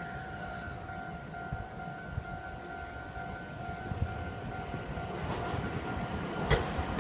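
A Japanese railroad crossing warning bell ringing its steady repeating 'kan-kan' tone as a train approaches. The train's rumble grows louder over the last couple of seconds, with a sharp clack near the end.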